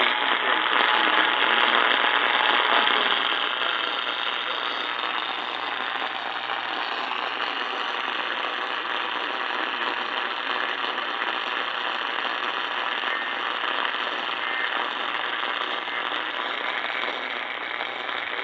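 Radio receiver static: a steady hiss and crackle with no clear programme coming through, louder for the first three seconds before settling, over a faint low hum.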